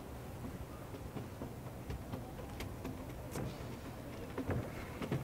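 Faint outdoor background noise, a low steady hiss and rumble, with a few light ticks scattered through it.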